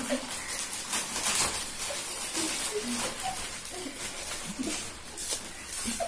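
Lay's potato chip packets crinkling and rustling as several are torn open and handled at once, with repeated short sharp crackles of the plastic film.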